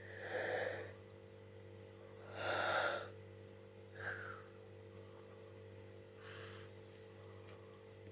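A woman yawning, with deep breathy gusts of breath, the loudest about two and a half seconds in. A short sigh falling in pitch follows about four seconds in, then a fainter breath near six and a half seconds.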